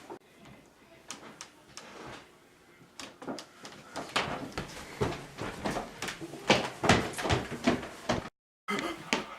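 Door knocking and rattling: quiet at first, then an irregular run of knocks from about three seconds in. The sound drops out completely for a moment near the end.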